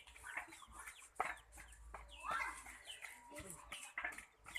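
Chickens calling, a string of short high calls that fall in pitch, several each second, with a sharp click about a second in.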